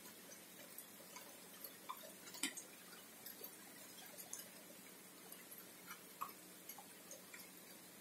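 Water drops dripping onto wet leaves: faint, irregular ticks and taps, the loudest about two and a half seconds in.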